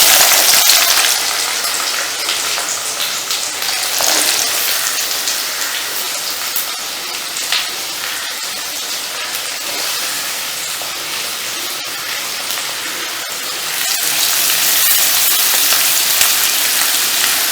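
Chopped onions and green chillies sizzling in hot oil in a kadai. The sizzle is loud at first, eases to a steady frying hiss about a second in, and grows louder again near the end.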